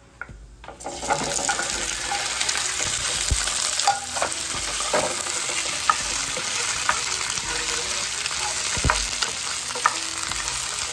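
Food frying in a hot pan: a steady sizzle that starts suddenly about a second in, with occasional sharp clicks.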